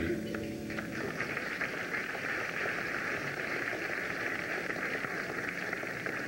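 Audience applause: a steady patter of many hands clapping that begins as the children's choir song ends right at the start, heard on a worn VHS tape recording.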